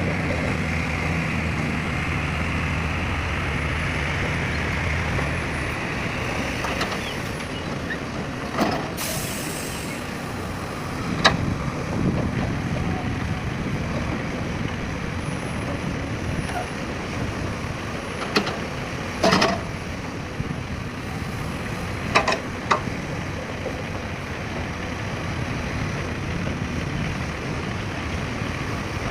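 Heavy diesel engines of an excavator and dump truck running steadily, with a low hum that eases after about six seconds. A brief hiss comes about nine seconds in, and sharp knocks sound several times, twice in quick succession near the twenty-second mark.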